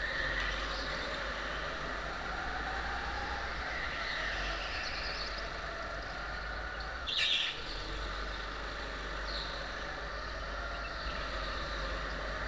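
Rental go-kart engine running steadily under throttle, heard close from the kart, with a few short high-pitched tyre squeals on the polished concrete floor through the corners, the loudest about seven seconds in.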